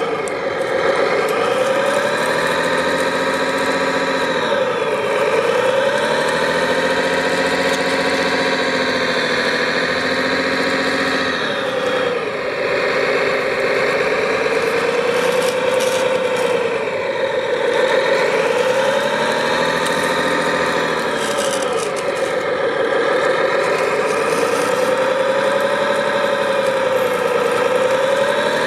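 Engine sound of an RC bulldozer running steadily, its pitch dropping and climbing back again every few seconds as it revs and comes under load.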